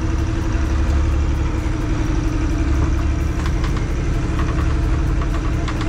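A boat's inboard marine diesel engine running steadily under way: a deep, even drone with a constant hum above it.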